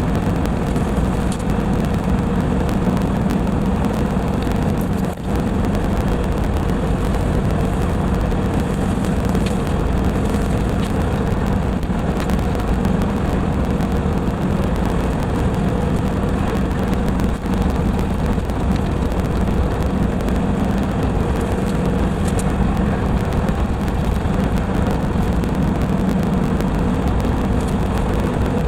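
LS MT240e compact tractor's diesel engine running steadily under load, driving a rotary brush cutter (brush hog) through brush, as a loud, even drone.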